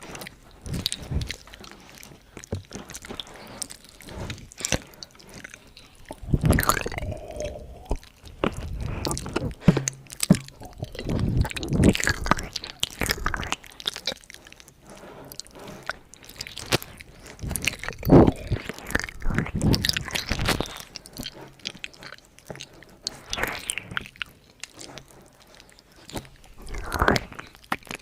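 Close-miked ASMR mouth sounds: irregular clicks, smacks and short wet bursts at uneven intervals.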